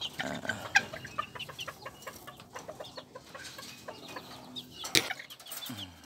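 Japanese bantam chickens clucking in their wire cage, with scattered short high chirping calls and a few sharp clicks, the loudest about five seconds in.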